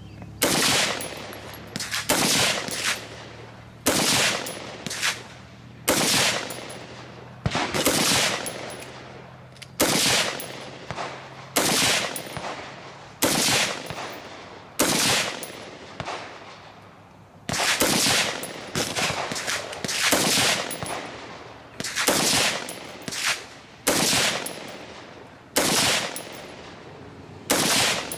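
Gunshots fired one at a time, about twenty in all, irregularly spaced roughly one to two seconds apart, some in quick pairs, each trailing off in a short echo.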